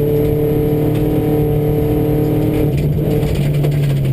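Subaru rally car engine heard from inside the cabin, held at steady revs at speed on a gravel stage, with a brief break in the note about three seconds in and a slight dip near the end. Tyre and gravel noise runs underneath.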